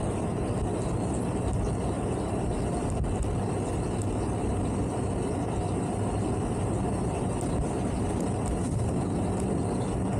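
Towboat's engines running steadily, an even mechanical drone with no change in pitch.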